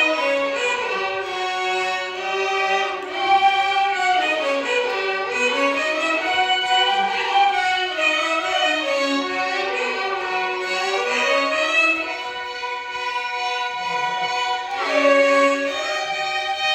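Violin orchestra playing a Carnatic melody together, the notes sliding and bending between pitches.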